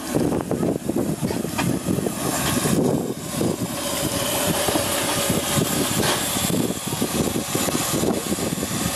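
A 15-inch gauge steam locomotive running slowly past at close range, with its rough, pulsing running noise and some steam hiss from around the cylinders.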